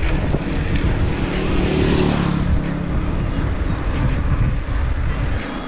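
Wind rushing over an action camera's microphone during a mountain bike ride, with a motor vehicle's engine humming past about two seconds in.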